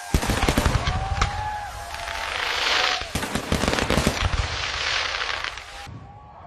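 Fireworks going off in a rapid volley of sharp bangs, with a dense crackling hiss from crackle shells in the middle, stopping suddenly near the end.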